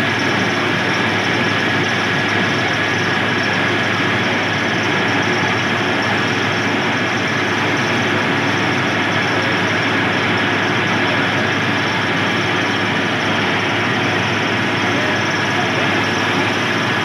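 TY250 crawler water well drilling rig running steadily while drilling, a loud constant machine din with a steady high whine through it.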